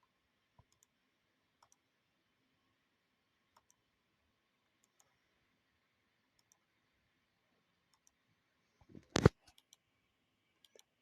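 Faint, sparse clicks a second or two apart, then one loud knock with a few smaller clicks just after it, about nine seconds in.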